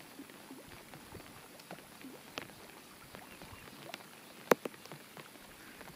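Light drizzle: scattered, irregular raindrop ticks, with one sharper tick about four and a half seconds in.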